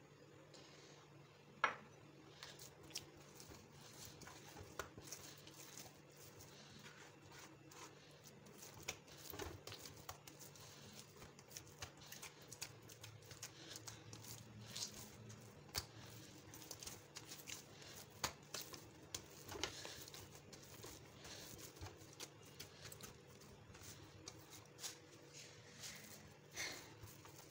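Hand kneading oiled pizza dough in a steel bowl: faint, irregular wet squelches, slaps and clicks of dough and fingers against the metal, with one sharper knock about a second and a half in.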